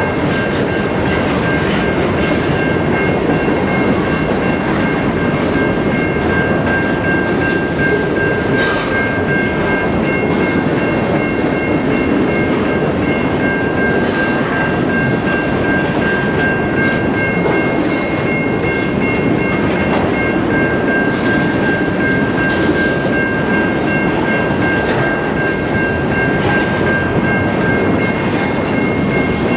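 Covered hopper cars of a freight train rolling past at close range: a steady rumble of wheels on rail with occasional clacks at rail joints, and a steady high squeal over it that fades and returns.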